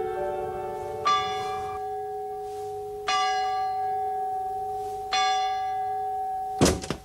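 A bell struck three times, about two seconds apart, each stroke ringing on into the next. A sharp knock near the end.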